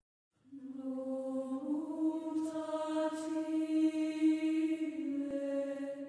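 Slow wordless vocal chant of long held low notes, the pitch stepping up about two seconds in and back down near the end.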